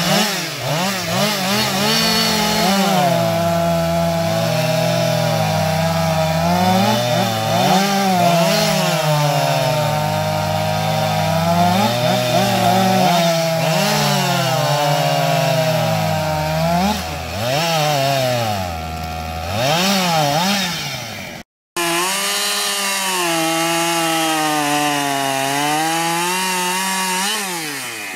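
Chainsaws running and cutting wood, their engines repeatedly dipping in pitch under load and picking back up. The sound breaks off for an instant about two-thirds of the way through, then a saw carries on running steadily.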